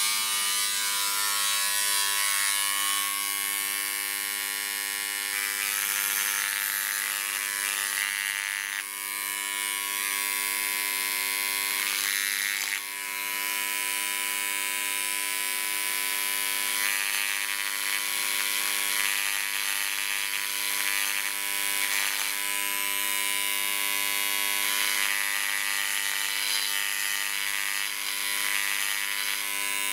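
Dremel Engraver 290-3 reciprocating engraver running at depth setting 2, its diamond bit stroking against glass: a steady electric buzz with a shifting, rasping hiss as the tip moves over the surface.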